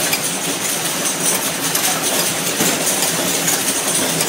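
Ampoule cartoning machine running: a steady mechanical run with light, rapid clicking and clinking as trays of glass ampoules are conveyed and fed.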